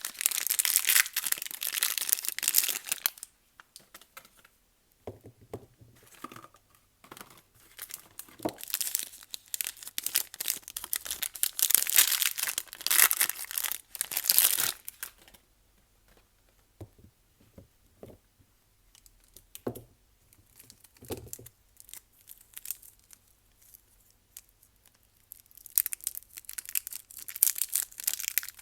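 Soap packaging being torn and crinkled open by hand, in three dense bouts of crackly rustling with quieter spells between. A few soft knocks fall in the quieter middle stretch.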